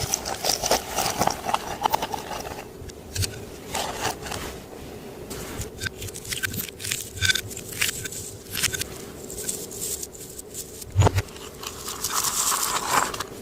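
Clear slime being worked by hand, making a busy run of sticky clicks, crackles and squelching scrapes, with a heavier thud about eleven seconds in.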